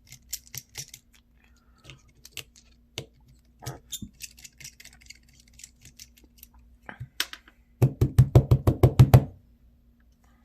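Small clicks and taps of a screwdriver working at a flip phone's back screws, ending in a quick run of about a dozen sharp clicks near the end.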